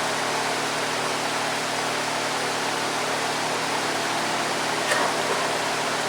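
Electric shop fan running, a steady whoosh with a low hum under it. A faint click about five seconds in.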